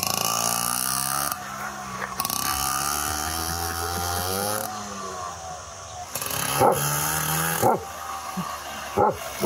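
Small moped engine running as the moped rides off and comes back, its pitch rising and falling as it speeds up and slows. A few short, sharp sounds stand out in the second half.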